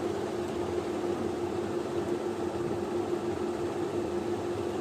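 Room tone: a steady hiss with a constant hum running through it.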